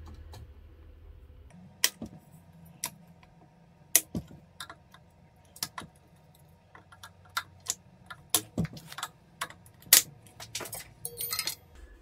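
Irregular sharp clicks and light metallic taps from hand tools and a brake cable being handled against a bicycle frame, with a quick run of clicks near the end.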